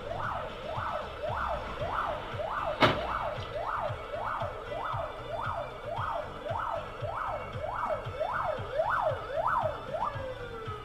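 Emergency vehicle siren in a fast rise-and-fall yelp, about two sweeps a second, winding down in a long falling tone near the end. A single sharp click about three seconds in.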